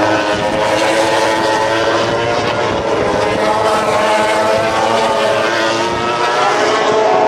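Racing motorcycle engines running at high revs, several bikes heard at once as overlapping engine notes that rise a little near the end.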